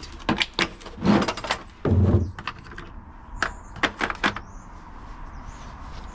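Metal hand tools clicking and clattering against each other, a rapid run of sharp knocks with a brief metallic ring, as sockets are picked through to find the right size; it dies down after about four and a half seconds.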